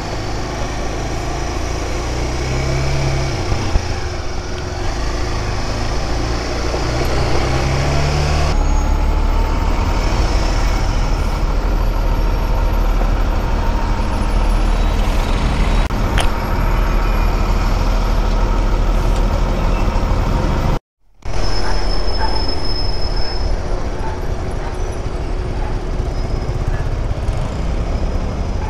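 Honda Dominator 250 motorcycle engine and traffic noise heard from the bike while riding slowly through city traffic, a steady low rumble with a few brief rises in engine pitch early on, and a city bus's engine close by in the middle part. The sound cuts out for a moment about 21 seconds in.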